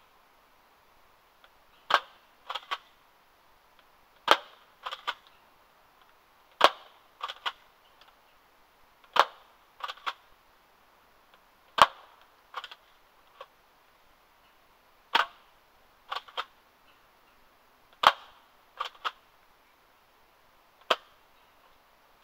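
Airsoft pump shotgun firing eight sharp shots, about every two and a half to three seconds. Each shot is followed by one or two quieter clacks from the pump being worked to load the next round.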